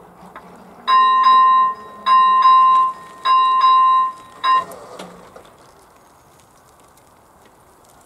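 First-generation electronic bell of an AŽD 71 level-crossing warning light ringing: a high electronic tone sounded in chopped groups about every 1.2 seconds, which stops about four and a half seconds in as the crossing's warning ends.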